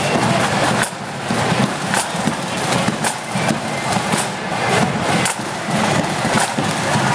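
Marching band drums beating a march, sharp strokes over a constant bed of crowd noise.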